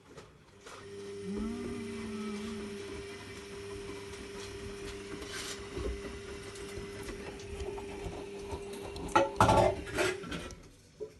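Zanussi Lindo 100 washing machine's motor turning the drum during the wash cycle: a steady motor whine starts about a second in and stops shortly before the end. A short burst of clattering comes just before it stops.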